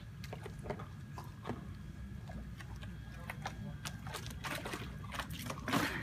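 Low wind rumble on the microphone, with scattered small splashes of water from the paddle and the swimming dog, and a louder burst of splashing near the end.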